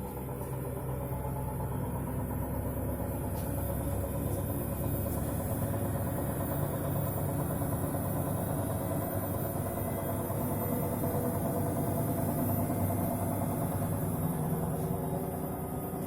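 Samsung WW70K62E69S front-loading washing machine spinning, a steady humming drone with a few faint knocks a few seconds in: the knocking during spin that the owner complains of in this new machine.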